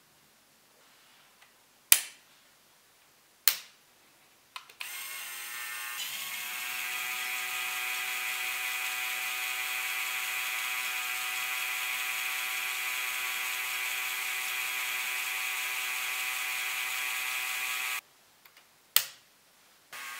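LEGO Technic Rough Terrain Crane 42082's electric motor and plastic gear train whirring steadily for about thirteen seconds as the outriggers are lowered, stopping abruptly. A few sharp clicks come before it starts and one just after it stops, and the whir starts again near the end.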